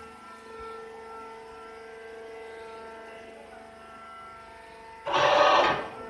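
Steady machine hum of several held tones from the wood shaving baler's machinery, with a loud rushing burst lasting under a second about five seconds in.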